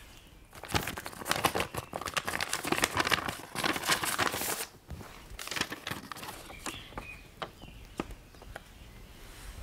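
Paper rustling and crackling as an envelope is opened and a letter unfolded. It is dense for about four seconds, then thins to a few scattered crackles.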